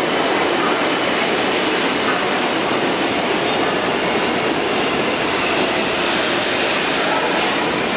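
Vintage R1/R9 subway train running through the station: a loud, steady rumble of wheels on rail with a faint high whine.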